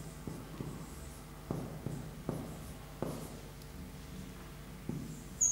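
Marker pen writing on a whiteboard: a string of short strokes and taps at uneven intervals, with a brief high-pitched tone near the end.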